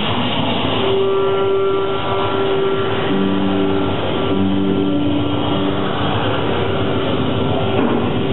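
Experimental noise performance on amplified electric guitar and electronics: a dense, steady drone, with a held tone entering about a second in and two lower held tones coming and going in the middle.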